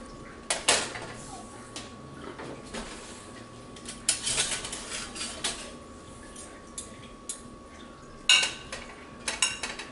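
Clinks and clatter of dishes and a metal serving utensil against a marble board as food is moved and set in place, a few separate knocks with the loudest about four seconds in and again near the end.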